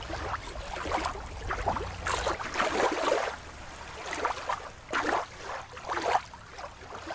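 Water lapping and splashing in uneven surges. A little over two seconds in, the sound changes abruptly to another stretch of water lapping with a low rumble dropped out.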